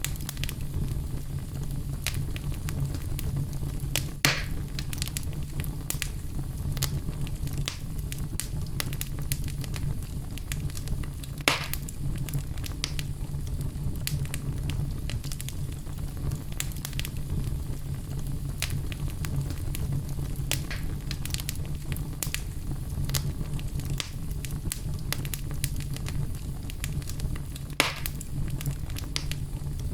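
Wood fire burning in a fireplace: a steady low rumble of flames with frequent small crackles and three louder pops, about four seconds in, near twelve seconds and near the end.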